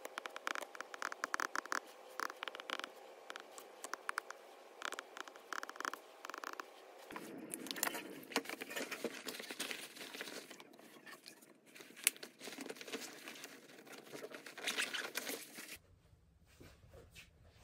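Stylus tip tapping and clicking on an iPad's glass screen during handwriting, over a faint steady hum. About seven seconds in this gives way to rustling clothing, the nylon of a puffer vest and jacket being put on and adjusted.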